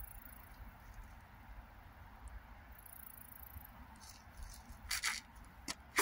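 Shallow stream running with a steady, soft rush of water, with low rumble underneath. Several short sharp clicks come in the last two seconds.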